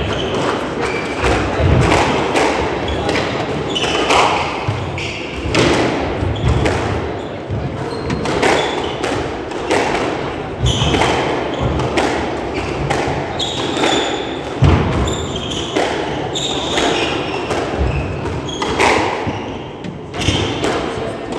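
Squash rally: the ball cracking off rackets and walls in sharp, irregular impacts about once or twice a second, with short high squeaks of court shoes on the wooden floor between them.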